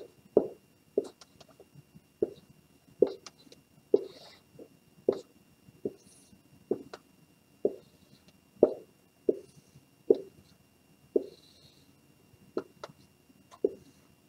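A run of short, soft knocks, roughly one every second and fairly even, with a faint brief high squeak twice.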